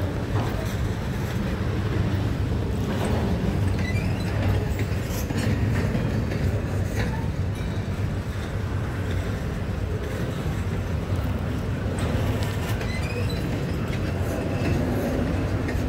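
Double-stack container train's railcars rolling past: a steady low rumble with scattered clicks of wheels over the rail joints and a few brief, faint high squeals.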